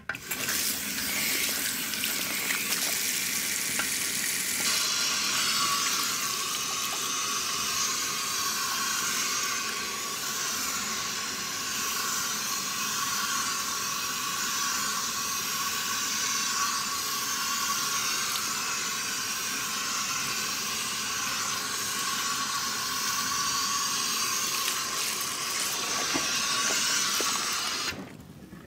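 Water running from the tap at a hair-washing basin in a steady stream, starting abruptly, becoming hissier a few seconds in, and shutting off near the end.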